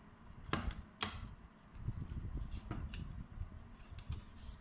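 Sharp little clicks and taps of thin plastic panel-light parts being handled and pulled apart: the light plate and reflector of an LED ceiling panel light. Two clear clicks come about half a second apart near the start, then softer ticks near the end, with faint handling rustle between.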